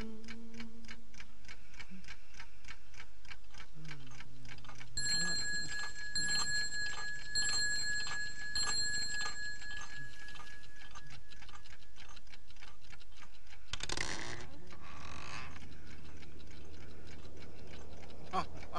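Steady, rapid, even ticking like a clock. A bright ringing tone pulses on and off about once a second for several seconds in the middle, and two loud whooshes come near the end.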